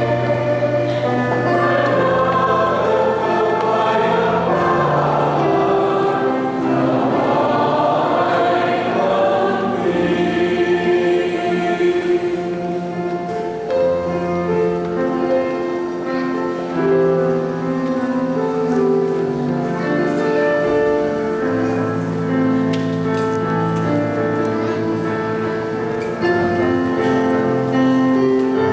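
Church choir singing a hymn over long held accompanying chords.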